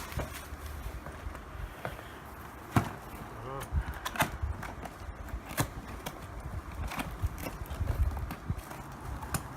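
Handling noises: scattered knocks and clicks as something is lifted and moved about, over a low rumble.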